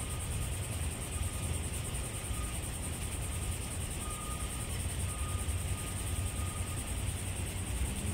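Steady outdoor noise: wind rumbling on the microphone, with a constant high hiss over it.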